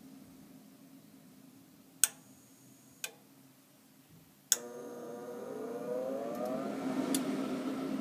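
Goodman GCH90904CXAB gas furnace starting a heating cycle: three sharp relay clicks from the control board, then the draft inducer motor switches on, its whine rising in pitch as it spins up. The furnace cycles like this without ever firing its burners.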